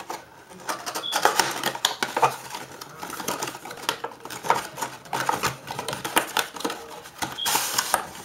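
Cardboard and plastic packaging of an OtterBox Defender phone-case box being handled and opened, the inner cardboard sleeve slid out: an uneven run of crinkles, scrapes and clicks.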